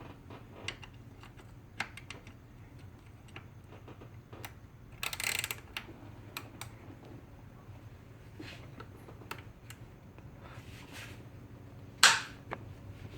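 Scattered light metallic clicks and clinks of a socket and wobble extension being handled and fitted onto a screw, with a short scraping rasp about five seconds in and one sharper, louder clack near the end.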